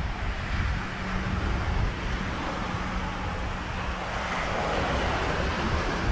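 Wind buffeting the action camera's microphone over steady beach surf. A faint low hum runs through the first four seconds or so, and a rushing swell rises about four seconds in.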